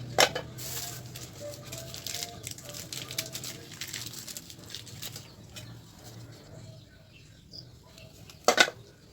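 Engine parts and tools being handled: a sharp metallic clink just after the start and another near the end, with scraping and rustling in between during the first half.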